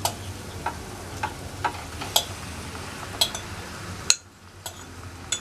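Chicken frying in oil and onion masala in a pan, with a spoon clinking and scraping against the pan several times as it is stirred. The sizzle drops away suddenly about four seconds in.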